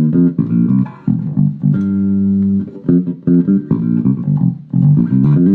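Electric Jazz Bass with Bartolini 9J1 pickups playing a riff of plucked notes, two of them held longer, through a passive tone filter with a little high-end roll-off dialed in for a deep, warm tone.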